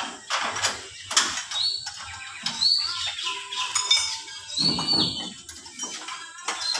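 Birds chirping in short calls, over scattered sharp metallic clicks and knocks from hand tools working under the pickup, the loudest knock about four seconds in.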